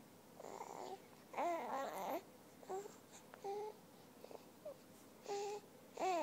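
A seven-week-old baby cooing: about six short pitched vocal sounds, some gliding up and down in pitch, with brief pauses between them.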